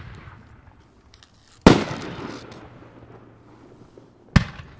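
Two loud bangs from a multi-shot 3-inch aerial fireworks cake, the first about a second and a half in and the second near the end, each followed by a long fading echo.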